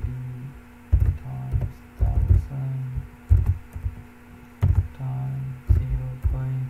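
Keystrokes on a computer keyboard, heard as irregular low thuds several times a second, with a low hum that comes and goes between them.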